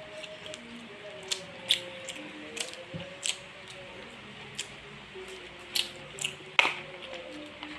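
Close-up eating sounds while chewing: a series of irregular sharp clicks and smacks, a few of them loud, over faint background music.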